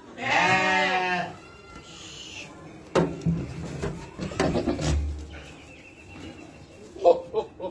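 One animal of a sheep-and-goat flock gives a loud, wavering bleat lasting about a second. A few knocks and shuffling follow, and short calls come near the end.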